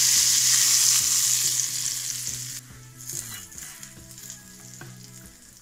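Hot tadka oil sizzling loudly as it is poured over the chole curry, dying away sharply after about two and a half seconds to faint clicks and scrapes.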